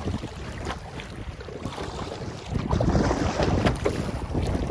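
Wind buffeting the microphone over choppy lake water, with waves splashing around a canoe. The noise grows louder about two and a half seconds in.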